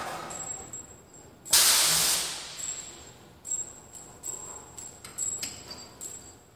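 A sharp burst of compressed air hissing from the band saw's pneumatic clamp cylinder and its air line about a second and a half in, fading over about a second. Several light metal clicks and knocks follow.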